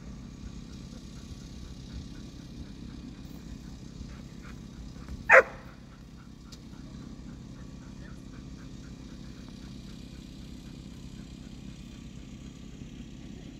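A dog barks once, short and loud, about five seconds in, over a steady low rumble.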